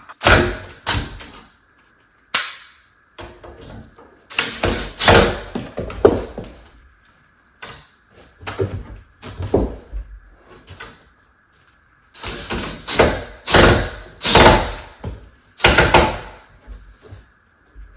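Repeated knocks, clicks and rattles of door-knob hardware being fitted into a wooden door, coming in clusters of a second or two with short pauses between.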